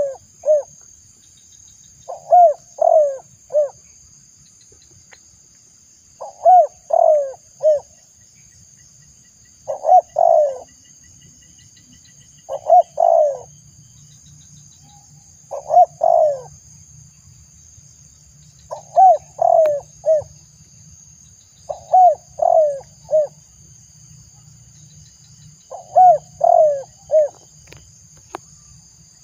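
Spotted dove cooing: phrases of three or four falling coos, repeated about every three seconds, some nine times. A steady high, thin drone sounds behind them throughout.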